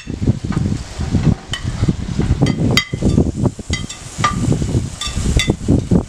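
A utensil knocking and scraping against a metal bowl as chicken pieces are tipped into a cooking pot: a string of sharp, ringing clinks, over a low rumble of wind on the microphone.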